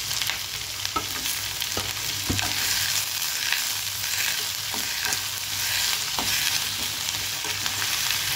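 Onions, garlic, dried red chillies and freshly added tomato sizzling in hot oil in a steel kadai, stirred with a steel spoon. The spoon clicks and scrapes against the pan about once a second over the steady frying hiss.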